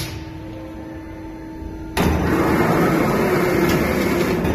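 CNC turret punch press running: a steady machine hum, then about two seconds in a sudden loud, dense run of rapid punch strokes through sheet steel.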